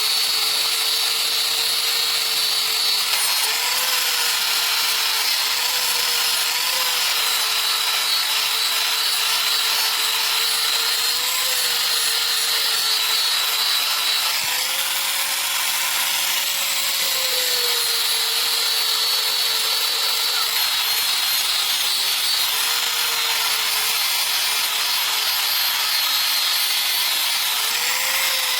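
Electric grinder running continuously against steel, a steady motor tone that sags and recovers slightly as the load changes, over a harsh high grinding hiss.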